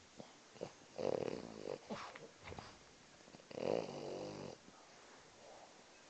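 French bulldog snoring in its sleep: two loud snores, each just under a second long and about two and a half seconds apart, with a few brief softer sounds between them.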